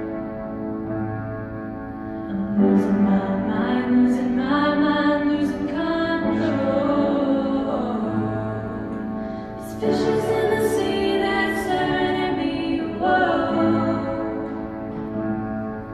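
A small group of singers, female voices to the fore, singing a song together, holding long notes; the singing swells louder just before ten seconds in.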